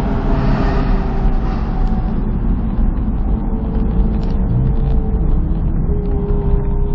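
Onboard sound of a Porsche 911 driving, engine and tyre noise running steadily. The rush of wind and road noise fades about two seconds in as the car slows for the roundabout, leaving a steady engine drone.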